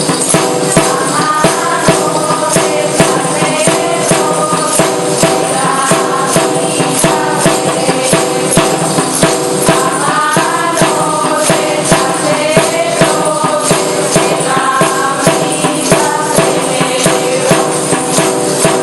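Asturian folk music: a melody over steady held drone tones, with a tambourine jingling and striking a quick, even beat.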